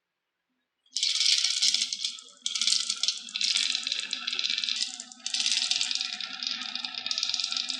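Marbles rolling and clattering down a wooden marble run, starting about a second in as a dense, continuous rattle that dips briefly twice.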